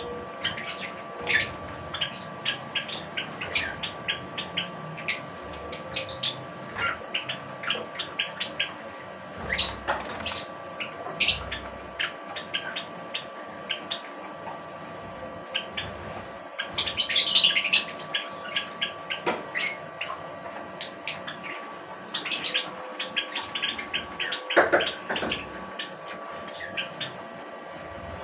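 Small birds chirping: many quick, high chirps one after another, with a denser flurry of twittering about two-thirds of the way through. A steady faint hum runs underneath.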